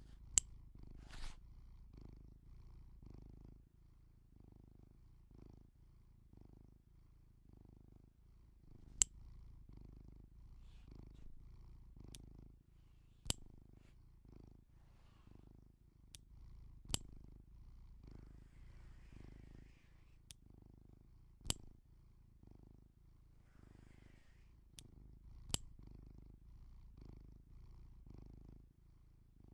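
Metal press-stud snap fasteners on leather bag straps clicking shut and open, about ten sharp single clicks at irregular intervals, over a soft low rhythmic pulsing.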